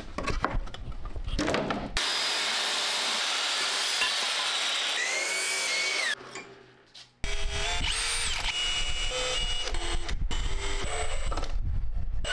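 Power tools working wood: a few knocks as boards are handled, then a power saw cutting through a softwood board for about four seconds, its whine falling as it stops, then a Milwaukee cordless drill running and driving a screw into wood.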